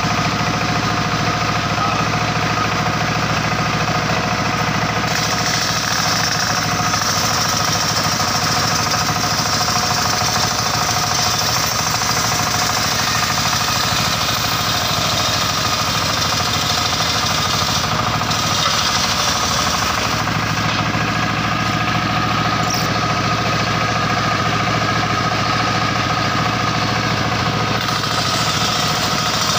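Circular-saw sawmill machine running with a steady drone. A harsher, hissing noise swells in for long stretches, about five seconds in and again near the end, as the blade cuts through teak.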